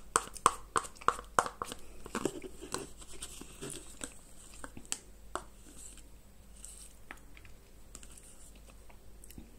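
Spoon scraping and clicking against the inside of a plastic yogurt tub, close to the microphone. Quick sharp clicks in the first couple of seconds give way to sparser, fainter ones by about halfway.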